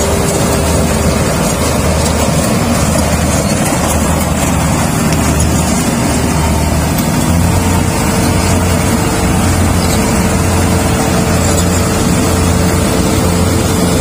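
Engine running steadily and loud, its hum stepping up slightly in pitch about halfway through.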